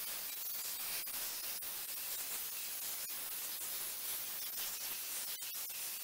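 Pressure-washer wand spraying down a chainsaw's body: a steady hissing spray.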